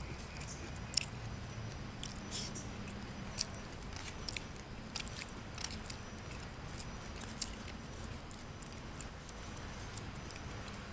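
Close-up eating sounds: chewing, with scattered sharp little clicks and taps from chopsticks and a plastic spoon working at fish in a styrofoam takeout box.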